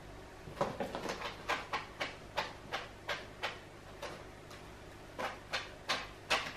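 A run of light, sharp clicks or taps, about three a second, pausing about four seconds in and then resuming for a few more.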